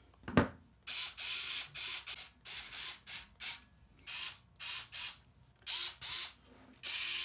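Hands-on PC assembly sounds: a sharp click near the start, then a run of about ten short mechanical rasping, whirring bursts, each under half a second, as hardware is worked into the case.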